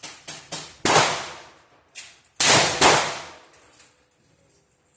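Handgun shots on a firing range: three loud shots about a second, two and a half and three seconds in, with quieter shots between, each followed by a long echoing tail.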